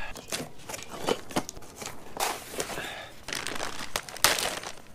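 Plastic bag around a new brake rotor crinkling and rustling as it is pulled open in its cardboard box, with scattered clicks and knocks.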